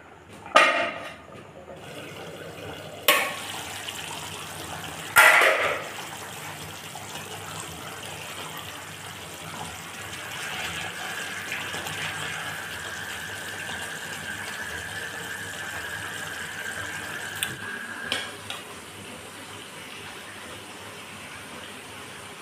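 Three loud metal clanks from a pan lid and metal spatula in the first five seconds or so. After that comes a steady bubbling hiss of fish curry simmering in a frying pan.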